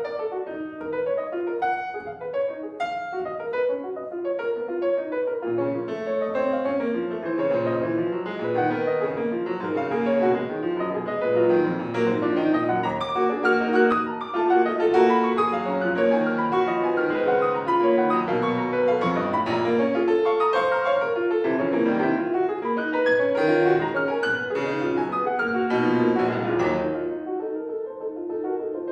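Solo piano playing classical music, dense and continuous, building to a fuller passage that breaks off about 27 seconds in before quieter notes resume.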